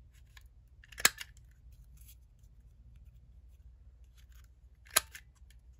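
Handheld corner rounder punch snapping shut twice, about a second in and near the end, rounding the corners of a small paper strip, with a few fainter clicks in between.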